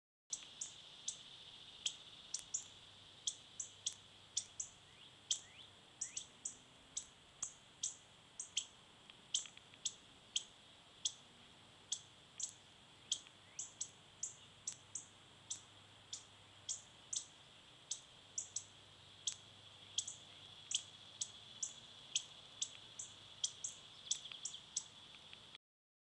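Northern cardinals giving sharp, high chip calls, repeated about two to three times a second without a break, over a steady high hum. This is agitated alarm chipping, which the owner attributes to his cat being outdoors.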